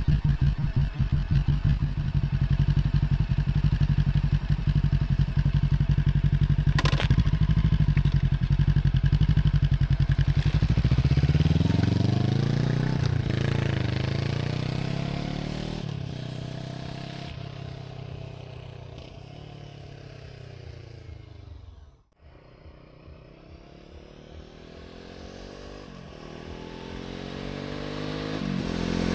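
Brixton Crossfire 500 motorcycle's parallel-twin engine running steadily close by, then accelerating away with the pitch rising through several gear changes and fading into the distance. After a sudden brief drop it comes back, revving higher and growing louder as it approaches again.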